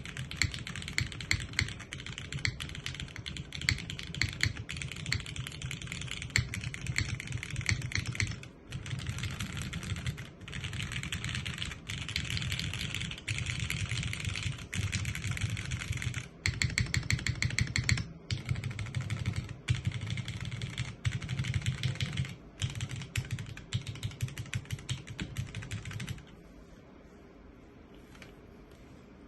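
Merisi 500C/M top-mount custom mechanical keyboard with Cherry MX2A Nixie switches, a polycarbonate plate and no foam, typed on in bursts of rapid keystrokes with short pauses between them, picked up through an iPhone's camera microphone. The typing stops near the end.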